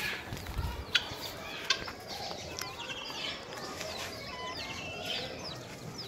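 Backyard fowl calling: clucking mixed with many short, high chirps that overlap throughout.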